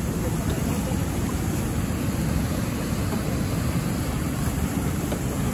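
Steady, even rush of fast-flowing, foaming river water below a spillway, heaviest in a low rumble.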